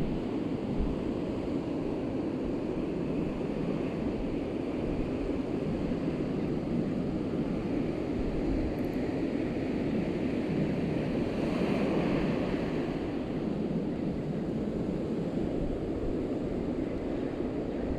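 Ocean surf washing up and running back over a sandy beach in a steady wash, with wind buffeting the microphone; the surf swells a little louder about two-thirds of the way through.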